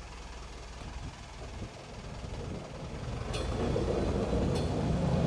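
Asa Coast Railway dual-mode vehicle, a road-rail microbus, pulling away along the rail track. Its engine and steel rail wheels grow louder about three seconds in as it accelerates, with a few sharp clicks near the end.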